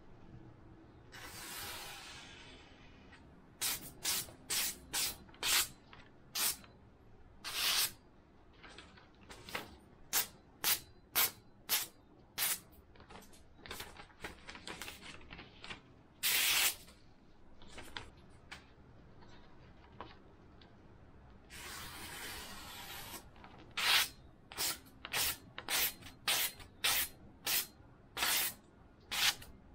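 A freshly sharpened kitchen knife slicing through a sheet of paper held in the air, in quick runs of short cutting strokes, about two dozen in all. Two longer, softer stretches of paper noise come near the start and again about two-thirds of the way through.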